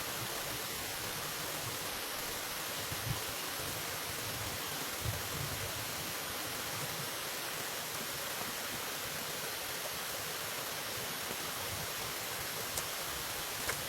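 Steady, even outdoor hiss with a few soft low thumps, at about three seconds, five seconds and near the end.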